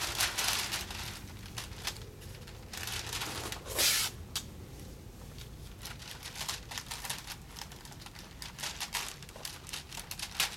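Masking paper and tape being handled while a shutter is wrapped and taped down: irregular crinkling and rustling, with one louder ripping rasp about four seconds in.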